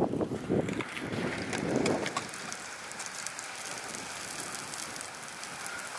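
Wind buffeting the microphone, gusting for the first couple of seconds, then settling into a steady rush, with scattered light clicks.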